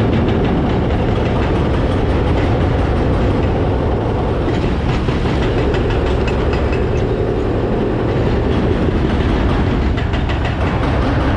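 Steady loud rumble of heavy diesel demolition machinery working on a concrete bridge, with a continuous rattling clatter over it.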